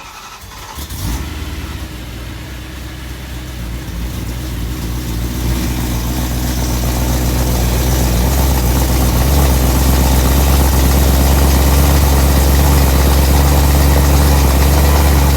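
BMW E93 M3's 4.0-litre V8 cold-starting through a catless X-pipe with resonators and the stock mufflers. It catches right away and settles into a steady cold-start idle that grows louder over the first several seconds, about twice as loud as the stock exhaust.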